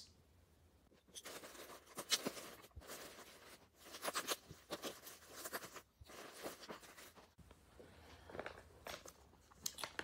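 Plastic packaging crinkling and rustling as a plastic mailer and a parts bag are opened and handled, in irregular crackles.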